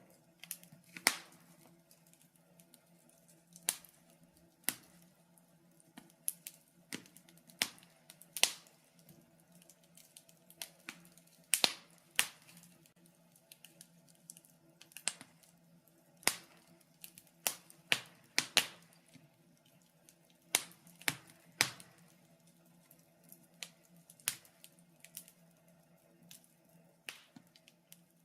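Wood fire crackling in a fireplace: irregular sharp pops and snaps, about one or two a second, over a faint steady hum.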